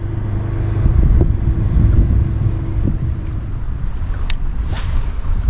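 A boat motor running with a loud low rumble and a steady hum that stops about three seconds in. A few light clicks and a short swish come near the end.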